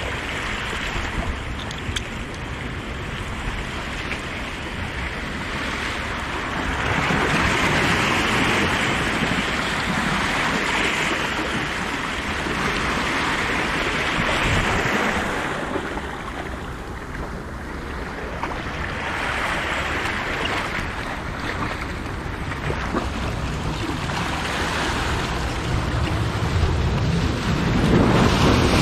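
Ocean surf breaking and washing over rocks, swelling and ebbing every few seconds, loudest near the end.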